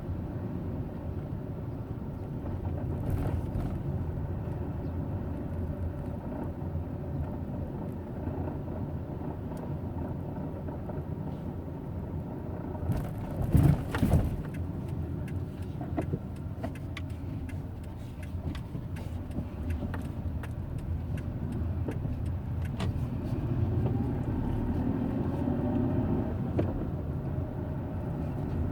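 Hyundai Eon running at low rpm: a steady low rumble, with a few loud knocks about halfway through and scattered clicks after them. This is the low-rpm grinding noise the owner is trying to diagnose.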